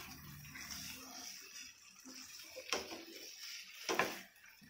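Vegetables frying in a non-stick pan with a steady sizzle while a spatula stirs them, with two sharp knocks of the spatula against the pan about a second apart in the second half.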